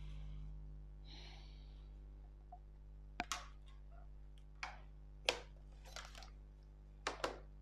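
Plastic drafting tools being handled on a drawing board. A plastic set square slides off the paper with a soft scrape. Then a long plastic ruler is set down and positioned with about seven sharp clicks and taps, some in quick pairs, the loudest a little after five seconds in.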